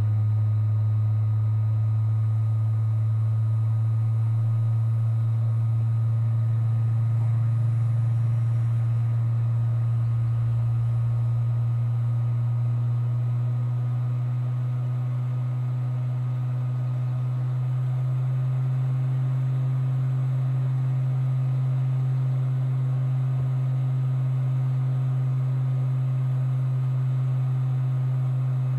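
Hot air rework station running, blowing onto an iPhone 5S board to reflow a replacement U2 chip: a steady low hum that steps up slightly in pitch about two-thirds of the way through.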